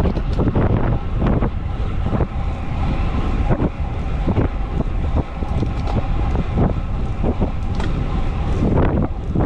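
Wind buffeting the microphone of a camera on a road bike riding at about 35 to 45 km/h: a dense low rush with irregular gusts.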